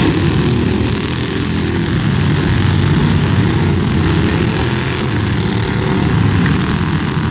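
Several riding lawn mower engines running at once, making a loud, steady sound of overlapping engine notes.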